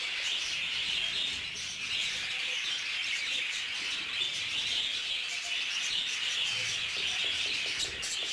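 Budgerigars chirping and chattering in a continuous, dense twitter.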